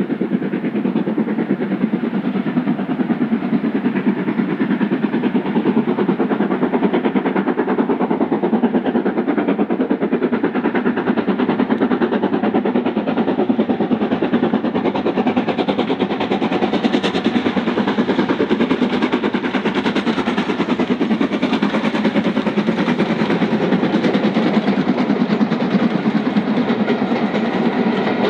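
LMS Stanier 'Black Five' 4-6-0 steam locomotive working hard, its rapid exhaust beats running steadily and growing brighter from about halfway as it draws near. The coaches begin to clatter past at the very end.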